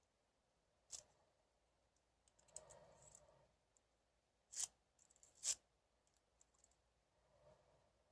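Faint metallic clicks of a lock pick and tension tool working the pins of a Medeco Biaxial lock: a sharp click about a second in, a few small ticks, then two louder clicks about a second apart past the middle, the second the loudest.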